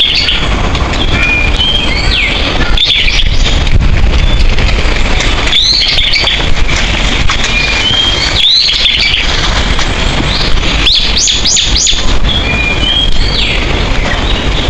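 Small songbirds chirping: short whistled notes and quick rising-and-falling calls, repeating every second or two, over a loud, steady rushing noise.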